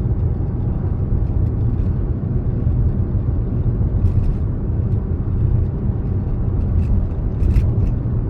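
Steady low road and tyre rumble inside the cabin of a SsangYong Torres SUV cruising at highway speed, with a few faint clicks.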